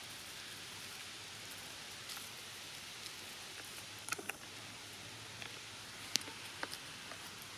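Steady outdoor hiss with a few scattered sharp clicks and ticks: a small cluster about halfway through, the loudest a couple of seconds later, then one more.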